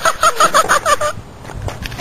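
A person's high-pitched laughter, a quick run of about six cackles that stops about a second in.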